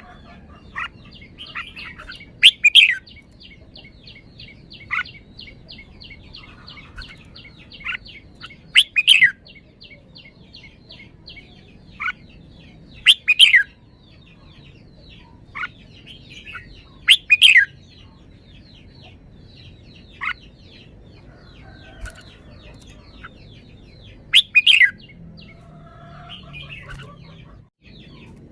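Red-whiskered bulbul singing: five loud, short song phrases a few seconds apart, with single short notes between them, over a fast, steady ticking chirr in the background.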